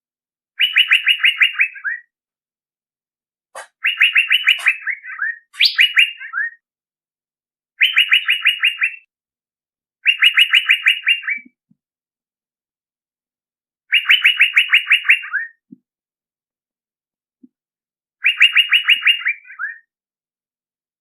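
Male Asian fairy-bluebird (cucak biru) lure call, played as a bird lure. Seven bursts of quick, evenly repeated notes, each about a second long and ending in a few falling notes, separated by pauses of one to four seconds.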